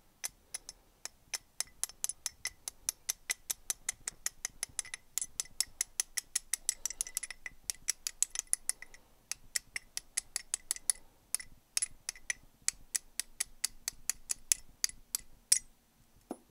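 Rapid, light metallic tapping, about four taps a second, on the steel gear of a David Brown 990 PTO, driving a loose ball bearing out of its bore with a small drift. There is a brief pause about nine seconds in, and the tapping stops about a second before the end.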